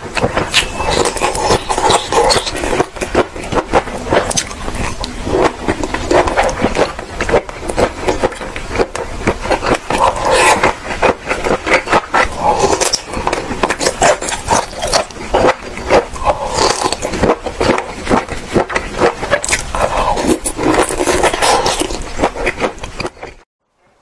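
Close-miked chewing of cooked octopus tentacle: dense, loud, wet, sticky mouth clicks and smacking. It cuts off suddenly just before the end.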